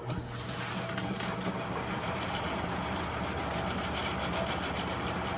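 Sears Craftsman 12-inch bandsaw switched on and running free with no cut, its motor, belt and new blade making a steady hum and whir that starts suddenly and settles within about a second. It runs smoothly, the belt tracking without walking.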